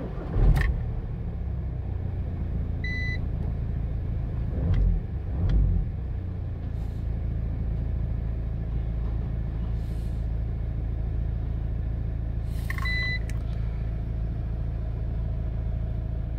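A Volkswagen 1.9 TDI PD four-cylinder diesel starts about half a second in, surges briefly twice, then settles into a steady idle rumble. The engine has just had its injection timing adjusted. Two short high beeps sound, one early and one near the end.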